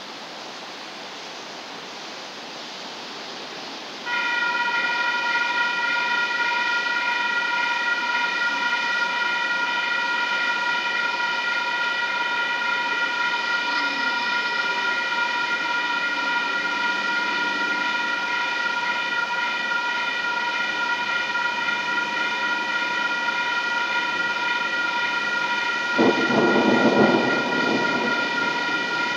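Steady rain hiss, then about four seconds in the railroad crossing warning bells start ringing and keep going. Near the end comes a short horn blast, about a second and a half long, from the approaching light-rail train.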